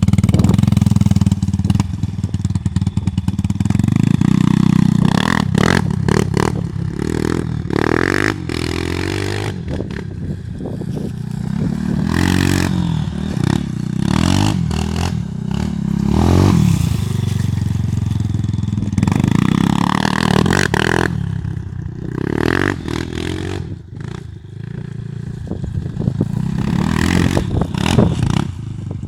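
Vehicle engine running, its pitch rising and falling several times as it is revved, with repeated short knocks and clatter. The vehicle's welded drive half-shaft is being tested.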